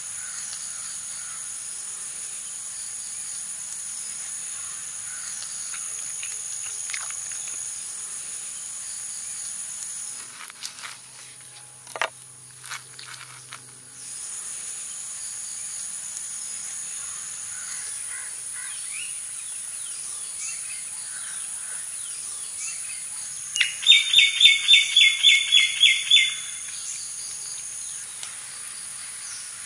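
Woodland ambience: a steady high-pitched insect drone with scattered faint bird chirps. The drone breaks off for a few seconds near the middle. About two-thirds of the way through, a bird gives a loud run of about ten quick, evenly spaced notes over two seconds.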